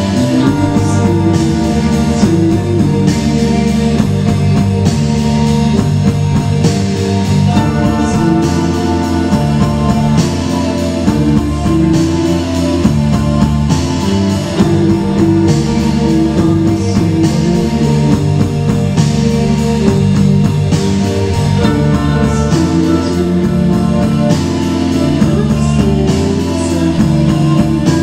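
Live rock band playing: electric guitars holding sustained chords over bass and a drum kit, with a steady cymbal beat and the chords changing every second or two.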